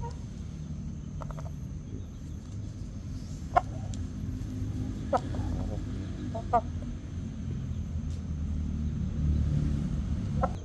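A chicken giving a few short, sharp calls, three louder ones a second or two apart, over a steady low rumble that swells toward the end.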